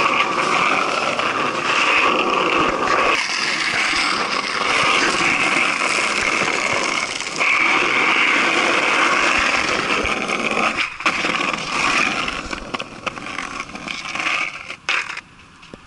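Skateboard wheels rolling over asphalt, a loud steady rolling noise. It thins out near the end with a few clicks and knocks as the board slows.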